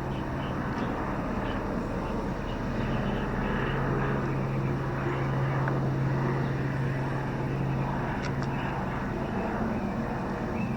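Helicopter flying overhead, a steady drone with a low hum that fades a little about three-quarters of the way through and then returns.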